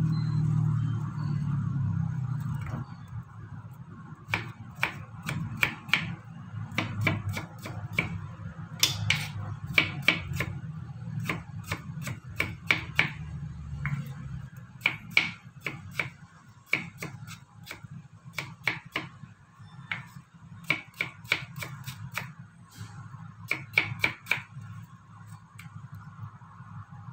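Kitchen knife cutting watermelon into cubes on a plastic cutting board: sharp knocks of the blade on the board in quick clusters, starting a few seconds in. A low hum fades out over the first few seconds.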